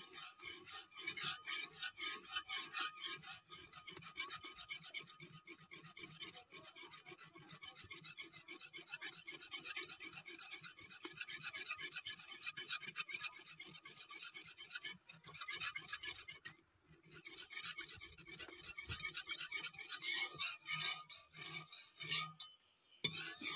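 Metal spoon scraping and rubbing against the inside of an aluminium pot as a yogurt mixture for yakhni is stirred continuously, in a quick, even run of strokes. The stirring pauses briefly about two-thirds of the way through and again near the end.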